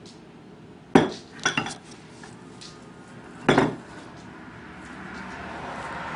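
Kitchenware clatter: a sharp knock about a second in, two or three quick clinks right after, and another knock about three and a half seconds in, as a drinking glass and dishes are handled on a wooden counter. A soft hiss swells gently near the end.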